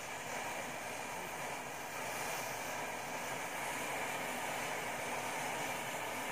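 Rows of standing matchsticks catching fire one after another and burning: a steady hiss of flame that grows slightly louder as the fire spreads.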